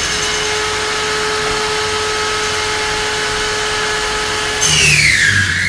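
Table-mounted circular saw running freely at speed with a steady whine. About four and a half seconds in, the blade bites into a block of wood: the sound gets louder and the pitch drops as the motor slows under the load of the cut.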